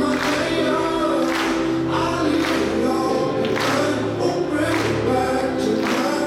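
Music with singing, held notes over recurring sharper accents.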